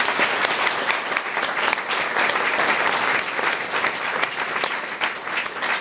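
Audience applauding, many hands clapping together; the clapping eases slightly near the end.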